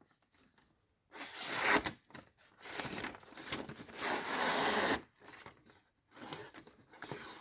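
A freshly sharpened hunting knife slicing slowly through a sheet of paper in a sharpness test: a papery hiss in three passes, the middle one longest, cutting cleanly.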